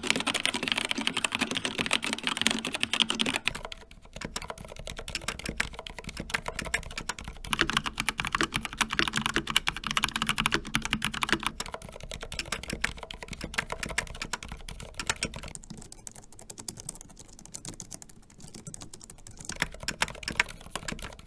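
Typing on three mechanical and scissor-switch keyboards in turn: fast key clicks on an Xtrfy K4 with Kailh Red linear switches, then an Asus Flare II Animate with ROG NX Red linear switches from about seven seconds in. From about fifteen seconds in the typing is softer and lighter on a Logitech MX Keys with low-profile scissor switches.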